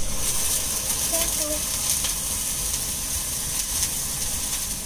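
Water poured from a glass onto sugar in a hot pan, sizzling the moment it lands and bubbling on steadily, easing off a little towards the end. It is the start of a sugar-and-water syrup.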